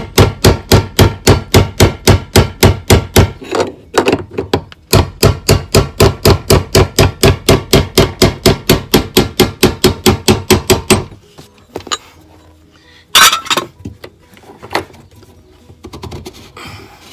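Rapid hammer blows on a chisel, about five a second, knocking the BMW E60 fuel pump's locking ring around to loosen it. The hammering breaks off briefly about four seconds in, resumes until about eleven seconds in, and is followed by one loud knock and some rubbing and handling.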